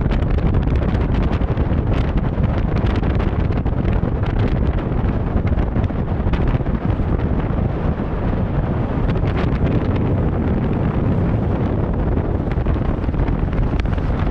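Loud, steady rushing noise with wind buffeting the microphone.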